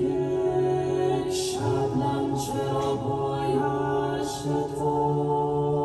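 A vocal ensemble singing a slow chant in long held notes that change pitch every second or two, with soft sibilant consonants between.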